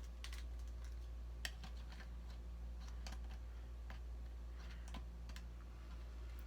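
Small irregular plastic clicks and taps from handling an action figure and fitting its accessories, with one sharper click about a second and a half in, over a low steady hum.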